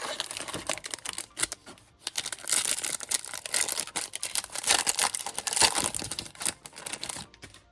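Plastic foil wrapper of a trading card pack crinkling and tearing as it is ripped open, a dense crackle of sharp clicks that is busiest from about two seconds in until near the end.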